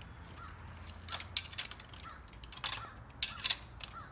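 Irregular sharp clicks of hand tools and metal bolt hardware while a support-brace bolt is snugged, over a low steady hum.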